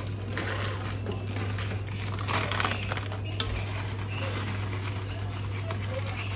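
Kitchen handling sounds: a plastic bag of crispy fried onions rustling as it is shaken over a pot of biryani, with light clinks of utensils against cookware, over a steady low hum.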